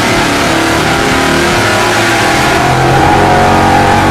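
Small-block Chevy V8 (Dart SHB, 400 cubic inches) running at wide-open throttle on an engine dyno during a pull on a 150-horsepower nitrous shot, revs climbing.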